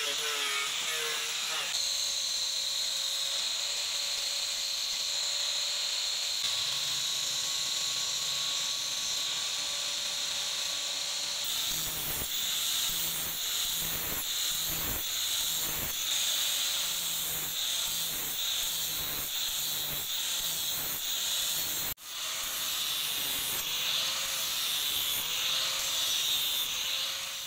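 Handheld angle grinder with an abrasive disc grinding the steel of an old file into a blade: a steady high hiss over the motor's whine. It cuts out suddenly for a moment near the end, then the grinding resumes.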